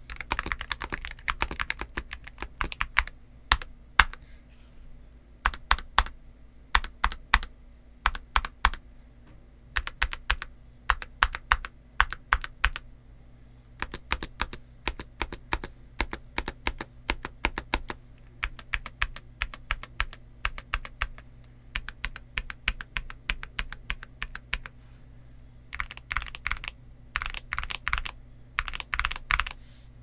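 Typing on a stock Akko MOD007B HE PC keyboard: polycarbonate case, Cream Yellow magnetic Hall-effect switches and dye-sub PBT OEM-profile keycaps. It opens with quick runs of keystrokes, slows to spaced single presses in the middle, and speeds up again near the end.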